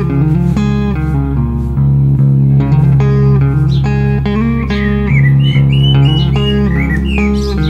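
Guitar-led background music with plucked guitar over a steady bass line.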